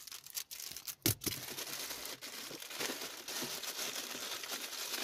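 Thin plastic packaging bag crinkling and rustling steadily as hands handle it, with a brief louder sound about a second in.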